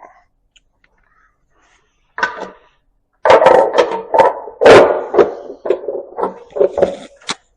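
Metal parts clanking and rattling against each other as they are handled on the engine: a short clatter, then a loud, irregular run of sharp metallic knocks that ring between strikes.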